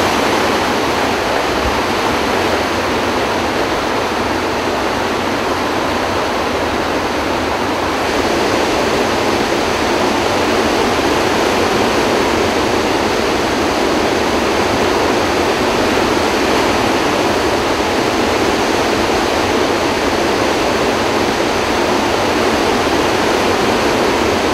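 Steady, loud rush of floodwater pouring through the open spillway gates of a flood-control dam, all eight gates open and releasing about 44,000 cubic feet of water per second. It gets slightly louder about eight seconds in.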